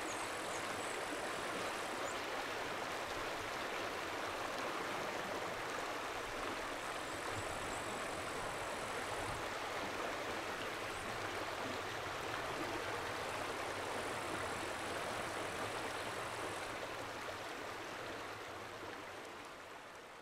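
Steady rushing of flowing water, with a faint high-pitched tone that comes and goes three times; the sound fades out near the end.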